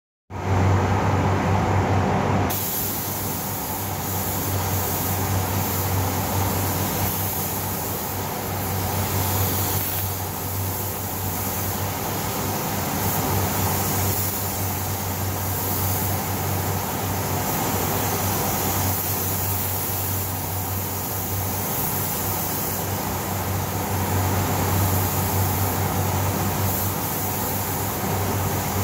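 Compressed-air paint spray gun hissing steadily as base coat is sprayed onto a car body, starting abruptly about two and a half seconds in, over the steady low hum of the spray booth's fans.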